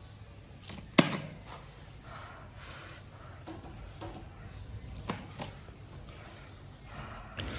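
A sharp click about a second in, then a few softer clicks and taps over quiet room tone.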